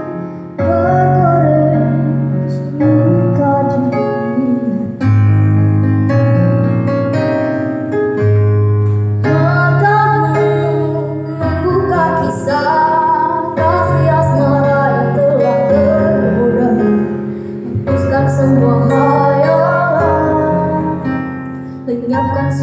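Music from a song: keyboard accompaniment with sustained bass notes changing every second or two under a melody line.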